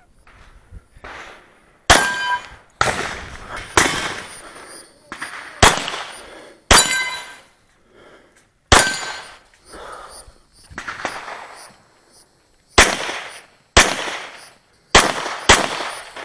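A pistol fired about ten times at an uneven pace, in strings of quick shots with short pauses between. Several hits are followed by a brief metallic ring from steel targets.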